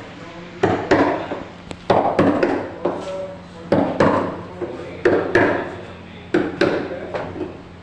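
Hammer blows on wood during carpentry work, mostly in pairs, a pair every second or so, each blow followed by a short ring.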